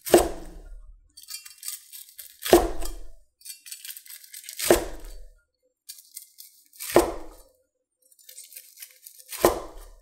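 A cleaver slicing through a crisp, panko-crusted deep-fried pork cutlet (tonkatsu). Each cut crackles through the crust and ends in a knock of the blade on a wooden cutting board, five cuts about two and a half seconds apart.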